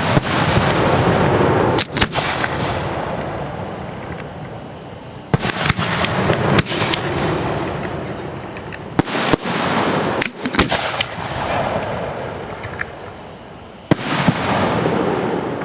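Aerial firework shells bursting overhead, about a dozen sharp bangs in clusters of two or three, each followed by a rumbling echo that fades over a few seconds.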